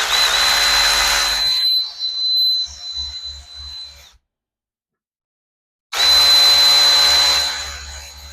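Power drill spinning a thread chaser through a lug nut to clean its threads, in two runs of about four seconds with a steady high motor whine, each loudest at the start and fading off.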